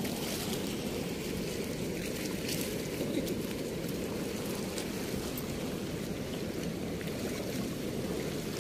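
Steady rush of flowing water, even and unbroken throughout.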